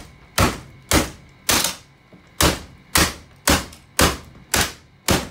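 A hammer striking the plastic housing of a Bissell stick vacuum in nine sharp blows, about two a second, with a brief pause near two seconds in, cracking the body open.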